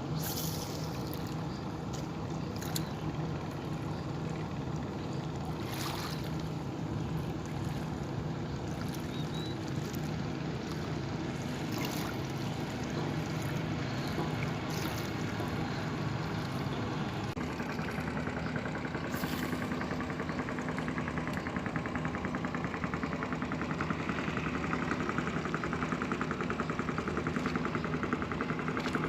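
A boat engine running on the river, a steady hum that turns into a fast, even chugging and grows louder over the last third, with water trickling and splashing close by.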